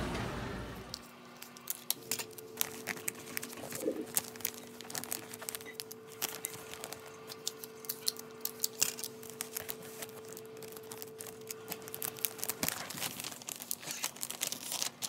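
Clear plastic gift bag crinkling and crackling in irregular bursts as it is handled. A faint steady hum runs underneath and stops near the end.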